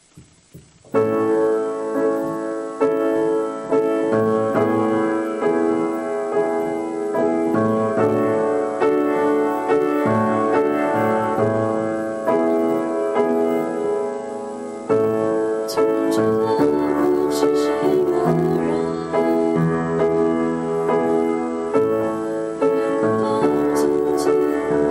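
Piano playing a slow piece of held chords with a melody on top, starting about a second in; deeper bass notes join about halfway through.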